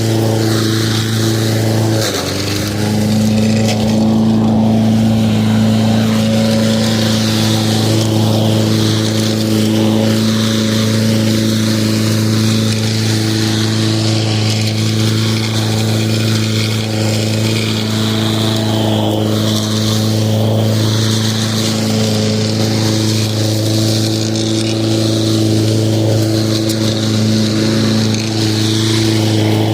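Lawn mower running steadily, with a steady hum; its pitch dips briefly about two seconds in, then recovers.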